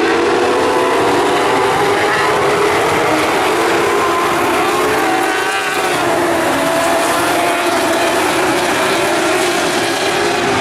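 A pack of speedway midget race cars running together on a dirt oval, several engines at high revs whose pitches rise and fall as the cars go through the turns.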